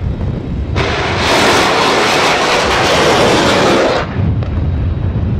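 Ship-launched missile firing: a loud rushing roar that bursts in under a second in, lasts about three seconds, then cuts off suddenly. A low rumble runs underneath.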